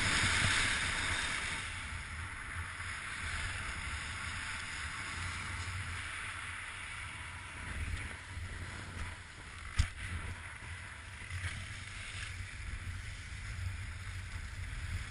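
Strong wind buffeting the microphone: a fluttering low rumble under a steady rushing hiss. The hiss is loudest at the start and eases about two seconds in. A single sharp knock comes just under ten seconds in.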